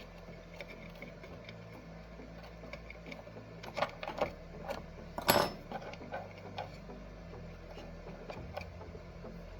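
Scattered small clicks and knocks of a power cord and its plug being handled and pushed into the connector of an IceRiver KS0 Ultra miner. A few come together around four seconds in, and the loudest comes a little after five seconds. A steady low hum runs underneath.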